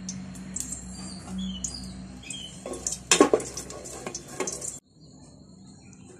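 A wooden spatula scrapes and knocks against an enamel pot as warm ghee is spread around the base. It comes as a cluster of clattering strokes about halfway through, over a steady low hum, and the sound cuts off suddenly near the end.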